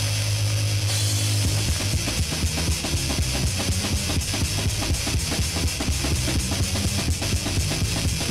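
Heavy metal recording with distorted guitar, bass and a drum kit. A held low chord rings for the first second and a half, then the band breaks into a fast riff with rapid drumming.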